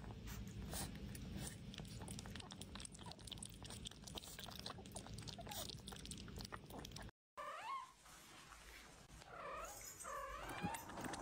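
Puppy sounds: a run of quick soft clicks for about seven seconds, then, after a brief dropout, short high whimpering cries that rise and fall.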